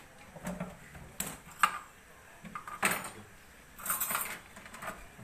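Scattered clicks and knocks from someone rummaging through kitchen items at an open refrigerator, with a short rustle a little before the end.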